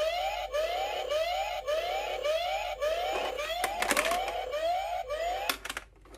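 Toy truck coin bank's built-in electronic police-siren sound effect: a rising whoop repeating about twice a second, which cuts off near the end. A few plastic knocks from the toy being handled come about two-thirds through and near the end.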